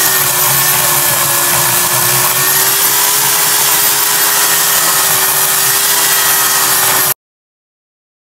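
Craftsman 12-amp corded electric chainsaw running flat out with its chain cutting through the wood of a tree stump: a steady motor whine over a constant hiss. The sound cuts off abruptly about seven seconds in.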